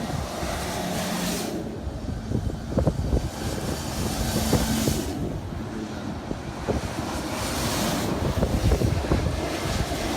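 Road traffic rumble with heavy wind buffeting on the microphone, and three swelling rushes of hiss, like military trucks driving past.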